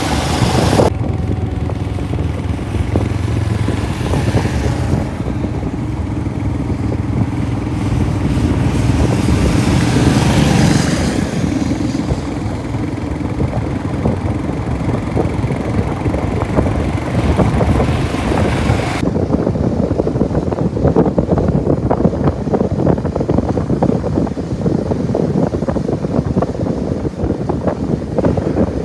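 Motorcycle engine running while riding, its note steady at first and then shifting about halfway through into a duller, rougher sound.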